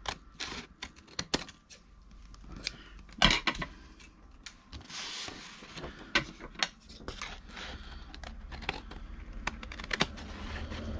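Scissors trimming a sheet of faux papyrus paper: a run of irregular small clicks and snips with paper rustling, the loudest click about three seconds in.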